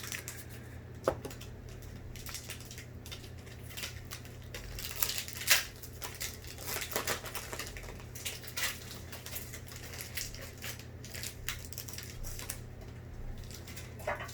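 Foil Pokémon booster packs and trading cards being handled: irregular crinkling, rustling and small clicks, the loudest about five and a half seconds in.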